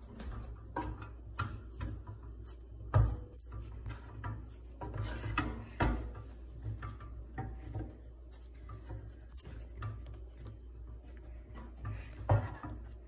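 Wooden spoon scraping and knocking in a saucepan as a thick, stiff ball of homemade playdough is stirred and pressed together, with irregular knocks, the loudest three about 3, 6 and 12 seconds in.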